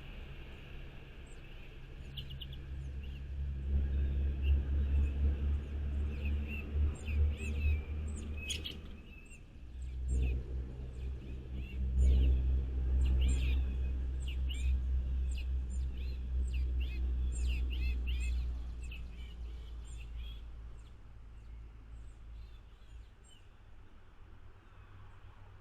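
Several small birds chirping and calling in quick, short notes, over a loud low rumble that drops briefly about a third of the way in and fades out near the end.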